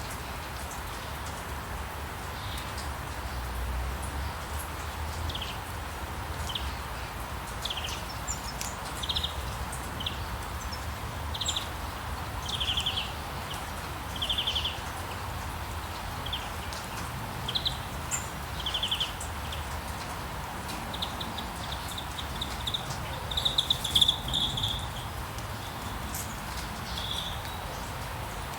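Steady rain hiss with birds singing over it in short, repeated chirps and trills. A longer run of trills comes near the end and is the loudest part.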